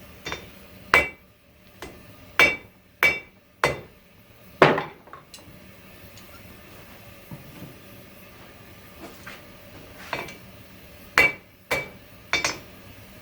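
Hand hammer striking hot coil-spring steel on an anvil while squaring the end of the bar: around a dozen sharp blows at an uneven pace, each with a brief metallic ring, and a lull of several seconds in the middle with only faint taps.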